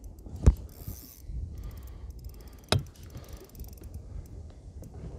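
Two sharp knocks, the louder one about half a second in and the other nearly three seconds in, over a low rumble of wind on the microphone, while a fish is played from a small inflatable boat.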